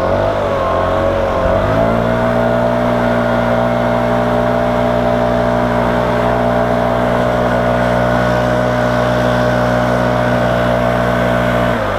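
Husqvarna 288 two-stroke chainsaw on an Alaskan chainsaw mill, running at full throttle while ripping a tulip poplar cant lengthwise. Its pitch wavers at first, climbs about two seconds in and then holds steady, and drops sharply at the very end as the throttle is released.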